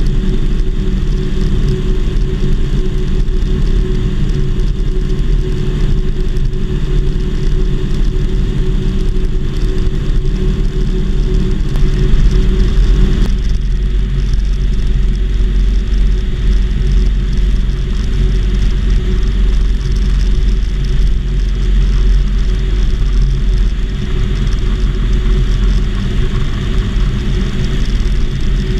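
Piston engine and propeller of a homebuilt Volksplane VP-2 running steadily in flight, a loud low rumble. The engine note changes about halfway through.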